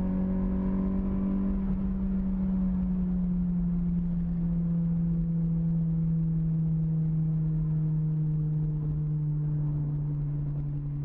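Car engine heard from inside the cabin at high speed, a steady drone whose pitch sinks slowly, over low road rumble.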